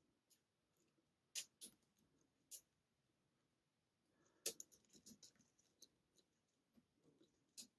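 Lock pick and tension wrench working the pins of a pin-tumbler challenge lock: a handful of faint, irregular clicks and ticks, with a quick cluster about halfway through. The picker is probing pins he thinks may be overset.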